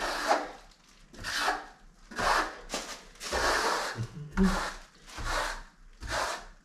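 Steel pool trowel scraping across a wet plaster skim coat on a wall, seven sweeping strokes about one a second.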